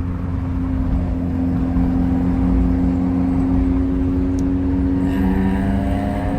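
Peugeot car engine pulling under acceleration, its revs climbing gradually and steadily.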